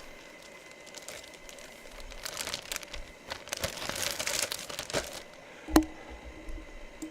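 Plastic wrapping crinkling and rustling in irregular bursts as a packaged jersey is handled and unwrapped, with one sharp knock a little before the end.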